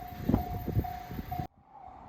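A Japanese level-crossing warning bell rings in steady, even pulses while a passing train's wheels knock over the rail joints. About a second and a half in, the sound cuts off abruptly, and afterwards the bell carries on more faintly.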